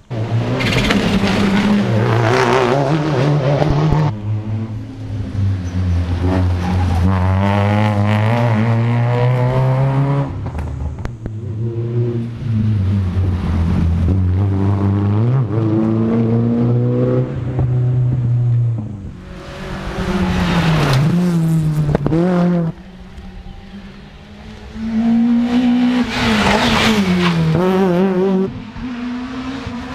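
Rally cars at race pace passing one after another on a tarmac stage. Each engine revs hard, and its pitch climbs and drops in steps as the driver shifts gears, brakes and accelerates out of the corners.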